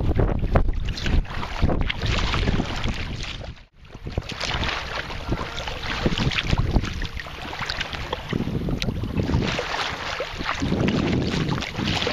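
Wind buffeting the microphone over choppy lake water, with small waves slapping and splashing against a kayak hull. The sound cuts out for a moment about four seconds in, then carries on.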